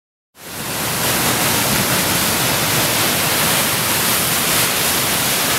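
Whitewater rushing over a creek ledge drop, a steady loud hiss of churning water that cuts in after a moment of silence.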